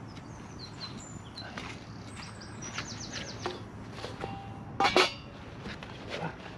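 Small birds singing: short high chirps and a quick run of descending notes, over scattered small crackles from the wood fire in a titanium camp stove. About five seconds in comes a loud brief clatter as a titanium frying pan is set down onto the stove.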